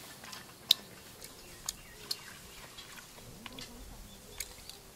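Handling noise from a small dog's harness and clothing being fastened: a scatter of short, sharp clicks over light rustling, the loudest click under a second in.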